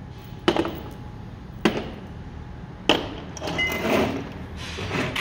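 Steel bolts and washers clinking as they are set down and sorted on a table: three sharp clinks about a second apart, then a jingling rattle of the parts being handled.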